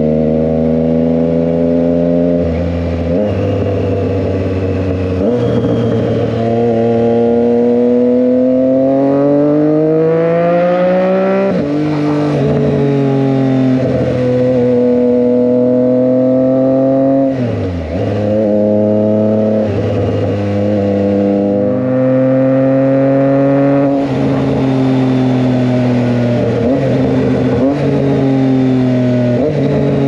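2023 Triumph Trident 660's inline three-cylinder engine through an SC Project aftermarket exhaust, under way: the engine note climbs under throttle and drops back at each gear change, several times over. A little past halfway the throttle snaps shut and the note swoops down and comes straight back up.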